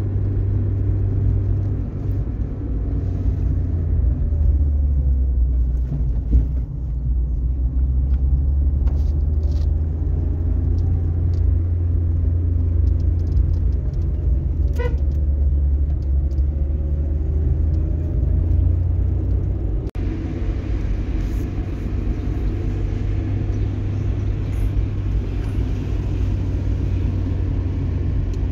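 Steady low rumble of a moving vehicle, with a sudden change in the sound about two-thirds of the way through.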